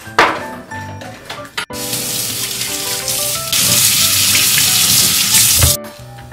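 Kitchen tap running onto a carrot being rinsed in a stainless steel sink: a steady hiss of water that starts abruptly about two seconds in, grows louder midway and cuts off shortly before the end. Soft background music plays underneath.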